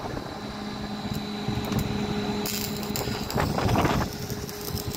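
Stick-welding arc from a Yamatec ARC400 inverter welder, struck about halfway through and crackling and sizzling, loudest shortly before the end. Under it runs a steady low hum.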